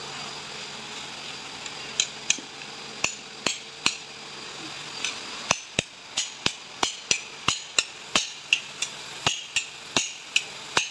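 A series of about twenty sharp taps or knocks, starting about two seconds in, coming about two to three a second in the second half.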